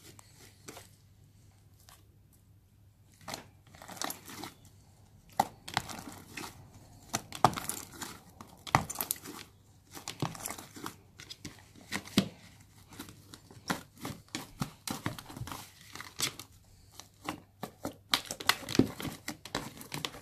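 Hand kneading and squeezing thick, fluffy shaving-cream slime in a plastic tub: irregular sticky crackling and tearing sounds as the stiff slime is pulled and pressed, starting about three seconds in.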